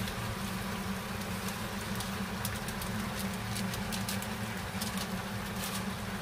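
A steady low mechanical hum over a faint hiss, with scattered light ticks in the second half.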